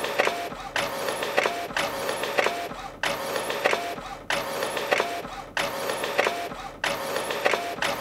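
Office printer running a print job, feeding out page after page at about one a second, with clicks inside each page cycle and a brief drop between pages.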